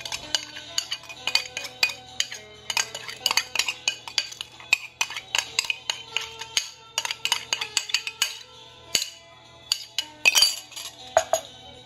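A metal spoon clinking and scraping repeatedly against a small ceramic bowl as marinade is scraped out of it, over soft background music.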